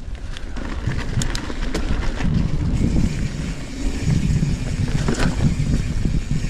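Wind buffeting a helmet camera's microphone over the rumble of a Trek Fuel EX 7 mountain bike's tyres rolling over trail, with scattered clicks and rattles from the bike.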